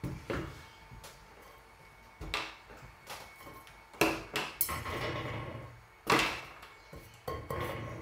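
Handling noise of wooden boards and small parts on a tabletop: a run of irregular knocks and clatters, with a stretch of scraping between the two loudest knocks.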